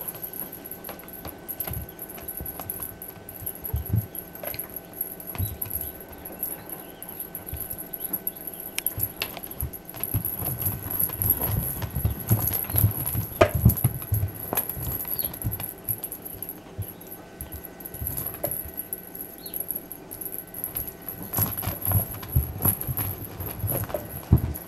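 Norwegian Forest Cat kitten's paws pattering and thudding on carpet as it pounces and scampers after a feather wand toy: irregular soft thumps and scuffs, busiest about halfway through and again near the end.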